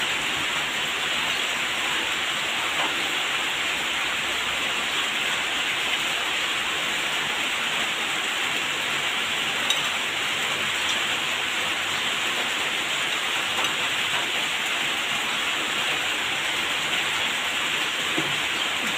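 Steady rain falling, an even unbroken rushing noise.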